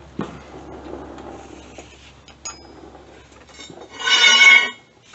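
Metal parts being handled while a bush hog's blades are put back on: a knock, some scraping, and a ringing metal clink. About four seconds in comes the loudest sound, a short harsh buzz of under a second.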